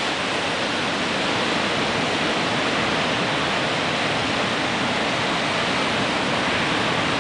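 Ocean surf breaking and washing in: a steady, even rush of whitewater noise with no distinct individual crashes.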